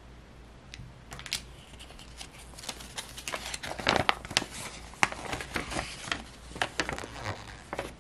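Paper rustling and crackling as a folded paper leaflet is unfolded by hand: a run of quick crinkles, sparse at first and busiest from about three seconds in.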